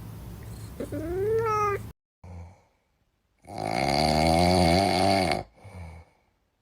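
Cat meowing in edited clips: a short meow about a second in, then after an abrupt cut to silence a longer, wavering drawn-out meow.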